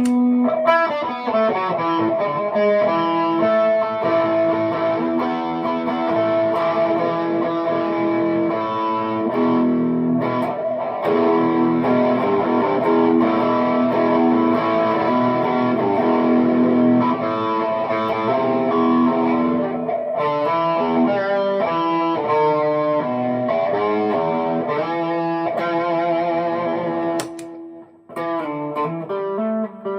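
Harley Benton SC-DLX electric guitar played through a Tone City King of Blues overdrive pedal with both of its engines on together, giving a bitey overdriven tone. Long held notes and chords at first, then quicker phrases with wavering bends and vibrato, and a brief break a couple of seconds before the end.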